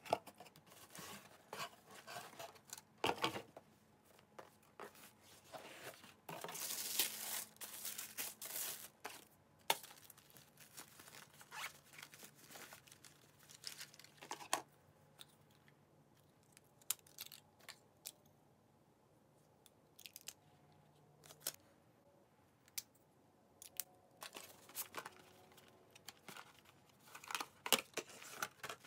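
Cosmetics gift-box packaging being unpacked by hand: paper and tissue paper rustling, with scattered clicks and scrapes from box lids and small cases being handled. The longest stretch of rustling comes about six to nine seconds in.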